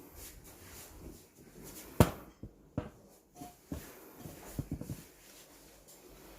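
Scattered knocks and clunks of handling work in a small room, the loudest a single sharp knock about two seconds in, followed by a cluster of lighter taps.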